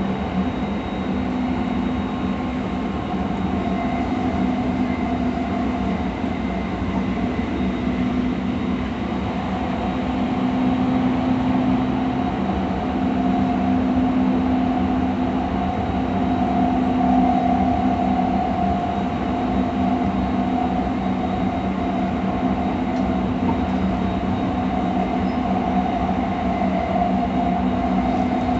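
JR East E217 series electric multiple unit running along at a steady speed: continuous wheel-on-rail running noise with a steady hum.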